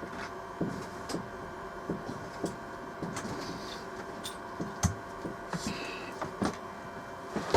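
Scattered knocks, clicks and thumps of small objects and tools being handled on a workbench, over a steady electrical hum, with one heavier low thump a little past the middle.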